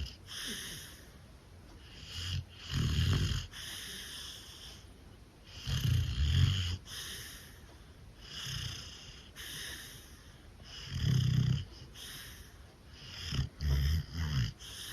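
A dog snoring in its sleep: a low, rattling snore every few seconds, with quieter airy breaths in between.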